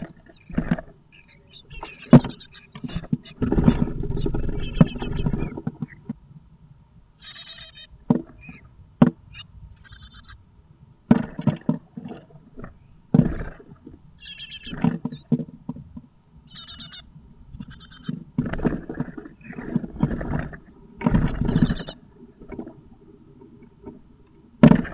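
Great tit nestlings on the point of fledging scrabbling and beating their wings against the wooden walls and moss nest of the box, in repeated bursts with scrapes and clicks, with short high-pitched chick calls between and a sharp knock near the end.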